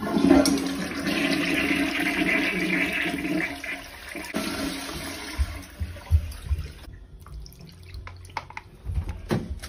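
Toilet flushing: water rushes loudly into the bowl for about four seconds, then runs on more quietly, with a few knocks and clatters near the end.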